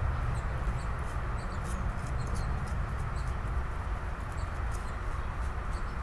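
Steady low outdoor rumble, with faint short high chirps and ticks scattered through it.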